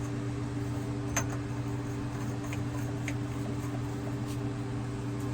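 A steady mechanical hum with a low, even tone, like a motor or fan running, with one sharp click about a second in and a couple of faint ticks later.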